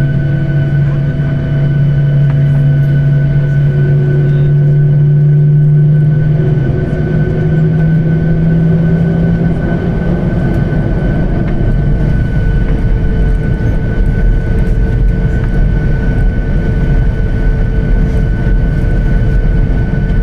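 Jet airliner's engines and cabin heard from inside the passenger cabin while taxiing: a steady hum with a constant high whine, giving way about halfway through to a broader, deeper rumble.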